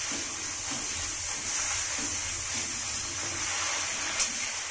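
Masala paste sizzling steadily in a nonstick kadai as a spatula stirs it and the cut bread pieces go in. A single sharp click comes near the end.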